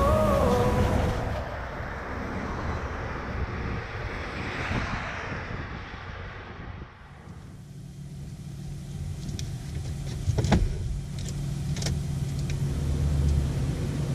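A semi-trailer truck passing on a highway, a rush of tyre and wind noise that swells and fades. About seven seconds in it gives way to the steady low hum of a truck engine idling, heard inside the cab, with a few sharp clicks and knocks as the driver settles into her seat.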